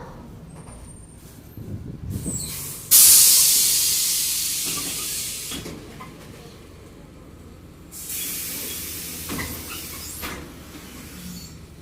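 Two compressed-air hisses from a Mercedes-Benz OF-1722M city bus's air system, over the engine running low. The first is loud and sudden about three seconds in and fades over nearly three seconds; the second, weaker, starts about eight seconds in.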